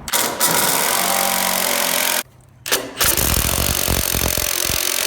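A power tool working wood runs in two long bursts, with a short stop a little over two seconds in before it starts again.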